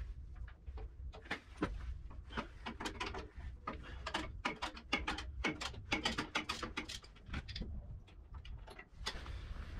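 Hand ratchet wrench clicking in quick runs of clicks, stroke after stroke, as bolts are worked loose from the tractor's front bolster; the clicking comes thickest past the middle and thins out near the end.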